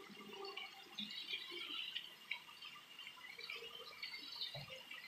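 Tofu cubes and tofu puffs frying in oil in a wok: a faint, irregular sizzle and crackle.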